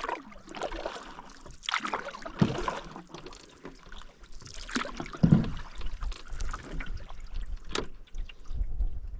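Canoe paddle strokes in lake water: splashing and dripping swells about every two to three seconds, with one sharp knock near the end.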